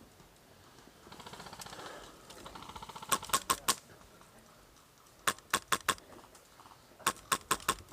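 Airsoft gun firing three short bursts of sharp cracks, four or five shots each in well under a second, spaced about two seconds apart.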